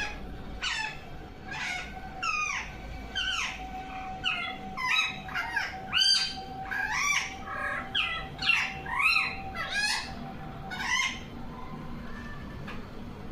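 Pet parrot calling over and over: a string of short squawking calls that sweep down and up in pitch, about one or two a second, stopping about eleven seconds in.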